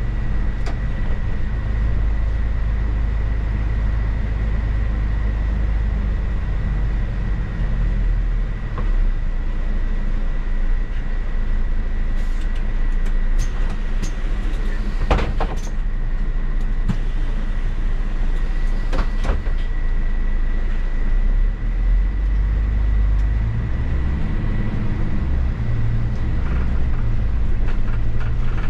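Mercedes-Benz city bus driving, heard from the driver's seat: steady low engine and road rumble with a thin, constant high whine on top. A few short clicks and rattles come about halfway through.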